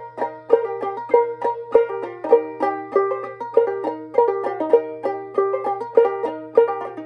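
Solo ukulele played clawhammer style in an instrumental break, with a quick, even run of plucked notes and no singing.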